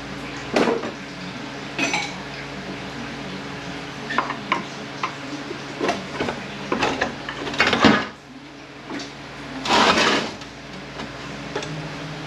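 Metal parts of a 231J transfer case clinking and clanking as it is taken apart by hand: a string of separate knocks, the loudest clank a little before eight seconds in, and a longer rattle around ten seconds in.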